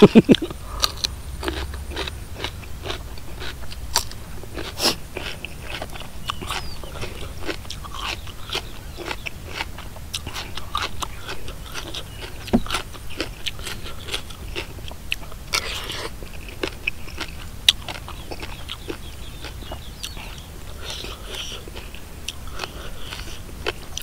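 Close-miked chewing and biting of crunchy raw vegetables and spicy papaya salad with chicken feet: irregular crisp crunches and mouth sounds, with no talk.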